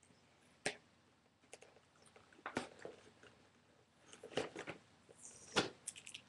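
Cardboard box and packing tape being picked at and handled: irregular crackles, clicks and rustles, with a brief scraping rustle a little after five seconds followed by a sharp snap.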